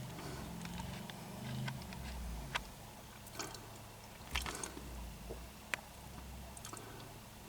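Pickup truck engine running at a low, steady idle inside the cab, with scattered sharp clicks and creaks about two and a half, three and a half, four and a half and nearly six seconds in.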